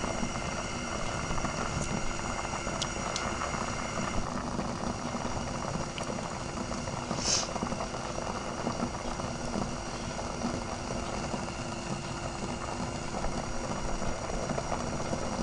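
Milk and crumbled cottage cheese boiling in a pot on a gas stove, a steady bubbling hiss, with a brief sharper noise about seven seconds in. The milk is separating into whey and curds.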